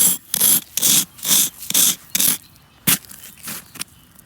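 Hand trowel scraping and chipping at a thick crust of storm ice, in repeated rough strokes about two to three a second. A sharper knock of the blade on hard ice comes about three seconds in.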